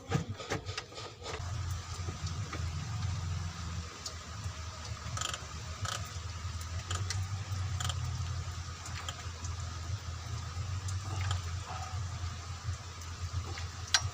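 Scattered metal clicks and clinks of tools and parts being handled during water-pump fitting, over a steady low rumble.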